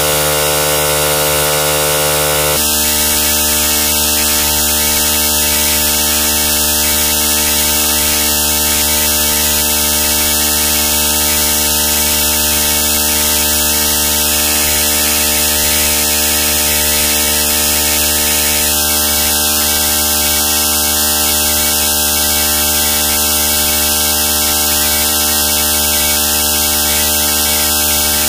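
Loud steady electrical hum and hiss: a buzz made of many even steady tones over a constant hiss, with no music or voice. Its tone shifts slightly about two and a half seconds in.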